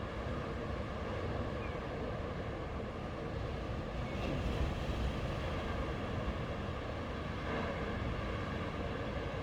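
Sea waves washing onto the shore in a steady wash, with a slightly louder surge about four to five seconds in.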